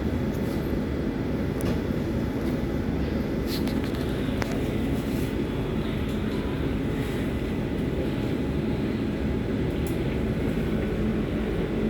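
Berlin U-Bahn H01 train running, heard from inside the car: a steady rumble of wheels on the rails with a few faint clicks.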